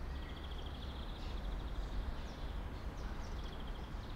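Outdoor garden ambience: a steady hiss and low rumble, with a faint, high, rapidly pulsing chirp that sounds twice.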